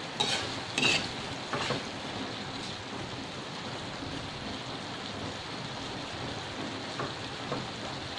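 A metal utensil scraping and clinking against a metal wok as vegetables are stirred, several strokes in the first two seconds and two light taps near the end, over a steady hiss.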